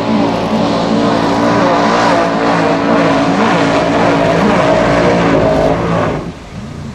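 Formula Offroad car's engine running hard at high revs, its pitch wavering up and down with the throttle as the tyres throw up water spray, heard as a rushing hiss. The sound drops away sharply about six seconds in.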